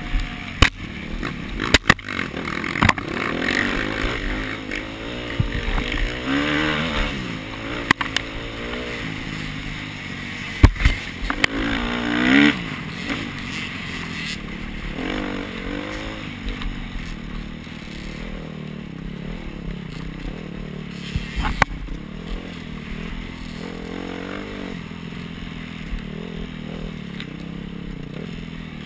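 Dirt bike engine heard from on the bike, its revs rising and falling repeatedly as it rides a rough woodland trail. Several sharp knocks come as it hits bumps, loudest a little before halfway and again about three quarters of the way through.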